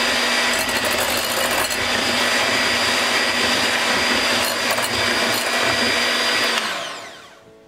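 Electric hand mixer whipping fresh cream to stiff peaks in a glass bowl, its motor and beaters running steadily. Near the end it is switched off and spins down, the pitch falling away.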